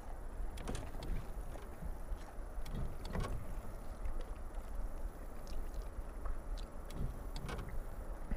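Small aluminium fishing boat on calm water: a steady low rumble with a light wash of water, broken by a few short knocks and ticks against the hull, the clearest about three seconds in and another near the end.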